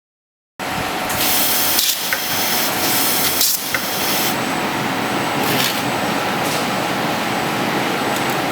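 Gantry laser welding machine at work: steady machine noise with a thin high whine, starting abruptly about half a second in, with three bursts of hiss in the first few seconds.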